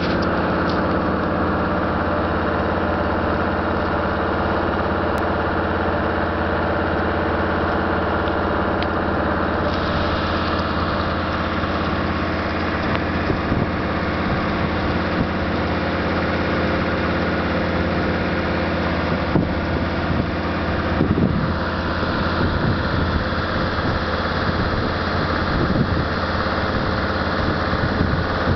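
Land Rover 110 engine running at a steady low drone while driving through deep snow, heard from beside the front wheel with the tyres pushing through snow. A couple of short knocks come about two-thirds of the way through.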